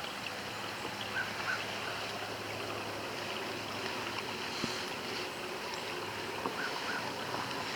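Steady outdoor hiss, with a few faint short chirps and light clicks scattered through it.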